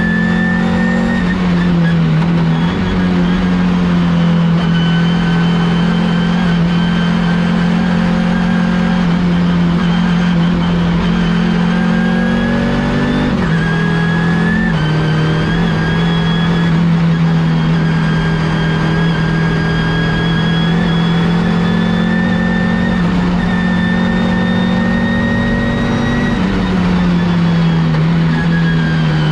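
Audi S2-R race car's turbocharged five-cylinder engine heard from inside the car, running hard at near-steady revs, with brief shifts in pitch around the middle and near the end. A thin high whine runs above the engine note.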